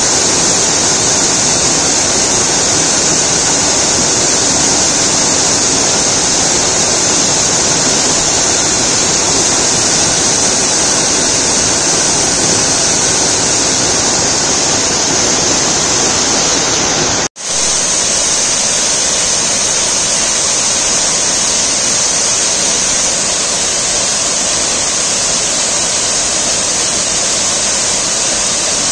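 Waterfall swollen after floods: a loud, steady rush of water pouring over rock into a pool. The sound cuts out for a split second a little past halfway.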